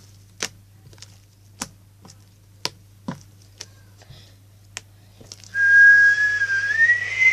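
Slime being handled, giving sharp little clicks and pops every half second or so. About five and a half seconds in, a loud whistling tone starts, steps up in pitch, holds, and stays on past the end.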